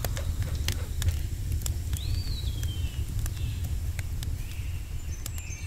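Outdoor forest ambience: a steady low rumble with scattered faint clicks and a single thin bird call about two seconds in that rises briefly and then falls, with faint high chirps near the end.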